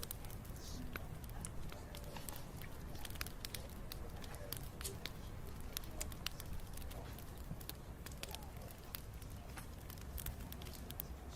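Bonfire of burning wood crackling, with frequent sharp snaps and pops over a steady low rumble.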